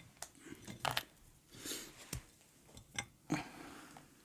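Quiet tabletop handling sounds during eating: a few light clicks and knocks and a brief soft rustle of food packaging.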